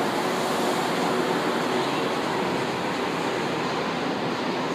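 São Paulo Metro Line 1 train running along the platform: a steady rush and rumble of wheels and motors with a faint steady hum, easing slightly near the end.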